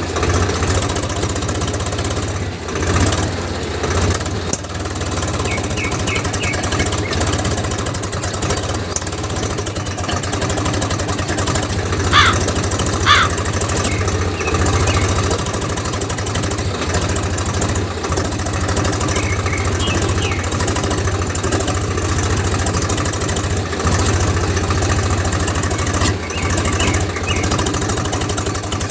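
A motor running steadily with a fast, even knocking rhythm and a low hum. Two short rising chirps come about midway.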